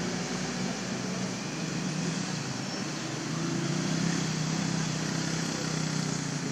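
A motor engine running steadily: a low hum over an even hiss.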